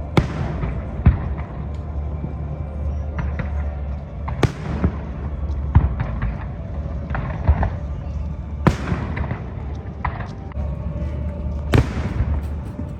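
Aerial fireworks shells bursting: sharp bangs every one to three seconds, each trailing off in a crackle and echo, over a steady background of crowd chatter.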